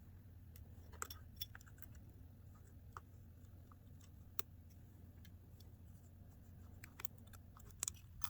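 Scattered small, sharp clicks and ticks of a precision screwdriver working tiny screws out of the metal plate that holds down an iPhone 8's LCD flex cables, over a faint steady low hum.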